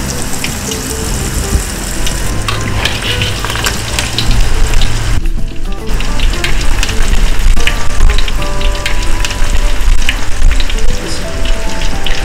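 Hot oil in a wok sizzling and crackling around bean-paste chilli fritters (bonbons piments) as they deep-fry, growing louder about four seconds in.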